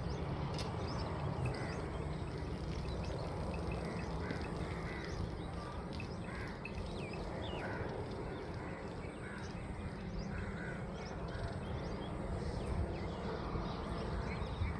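Many birds calling, with short calls scattered throughout, over a steady low rumble.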